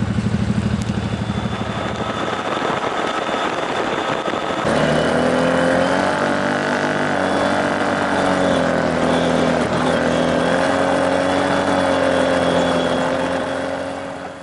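Side-by-side UTV engines: first a close engine running at low speed with a quick lumpy pulse, then, about five seconds in, an engine holding a steady cruising note on a dirt trail, its pitch dipping briefly near the middle and coming back up.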